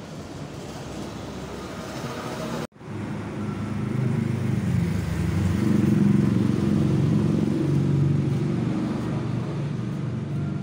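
A vehicle engine running with a low rumble. The sound drops out for an instant about three seconds in, then comes back louder.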